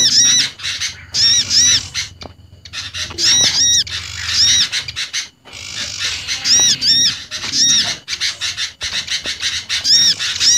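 Bird-lure recording of a mix of small garden birds calling, blending olive-backed sunbird, prinia and sooty-headed bulbul calls. Harsh, arched squawking notes come in twos and threes, repeating in a loop, with thin high chips between them.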